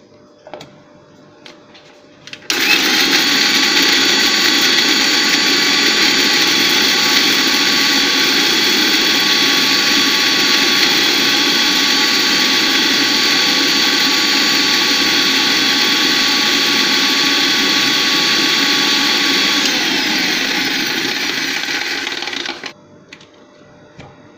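Bajaj REX 500 mixer grinder running steadily with a steel jar of dried red chilli pieces, grinding them to a coarse powder. It starts sharply about two and a half seconds in, runs for about twenty seconds, dips slightly in pitch and stops near the end, with a few light clicks of the jar and lid before and after.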